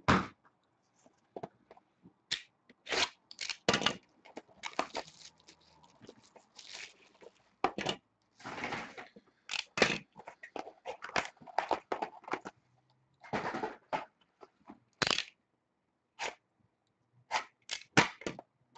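Plastic shrink-wrap and a cardboard trading-card box being slit with a utility knife and torn open, in irregular sharp crinkles, crackles and rustles.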